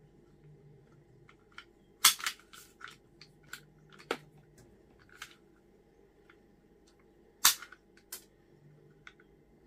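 Sharp, loud snaps of a hand tool at work, the strongest about two, four, seven and a half and eight seconds in, with lighter clicks and knocks between them.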